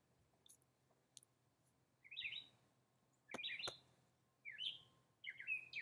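A small songbird chirping in four short bursts of quick notes, starting about two seconds in. Two sharp clicks come with the second burst.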